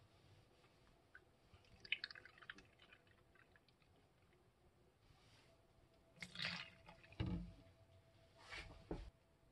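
Milk being poured from a plastic jug into a measuring cup and then tipped into a bowl of dry flour: faint liquid pouring, with a few louder short knocks and a splash in the second half.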